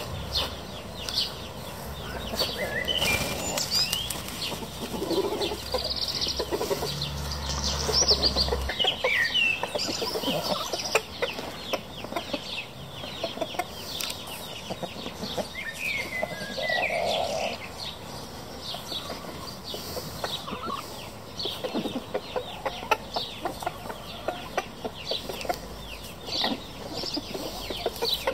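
A Marans rooster and his hens clucking and giving short calls now and then while they forage in grass.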